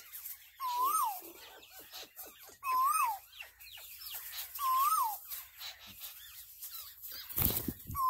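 Birds calling: one call that rises and then falls is repeated at about two-second intervals, with fainter high chirps and twitters between. A short low rumble comes just before the end.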